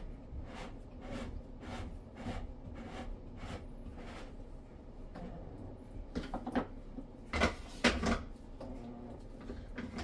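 Hands working a plastic whole-house water filter housing: soft rubbing strokes about two a second, then a few louder plastic clacks and knocks as the plastic housing wrench is handled, about six to eight seconds in.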